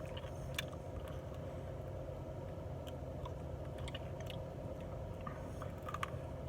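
A person chewing chicken wings, with scattered small wet mouth clicks over a steady low hum.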